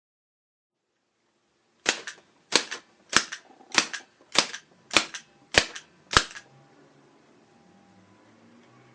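Rod-drive rubber band hand gun firing eight rounds in steady succession: eight sharp snapping clicks about two-thirds of a second apart, each with a quick double clack, starting about two seconds in.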